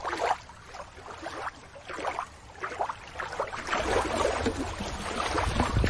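Water splashing and lapping in irregular, uneven bursts, with a low rumble that gets stronger about four seconds in.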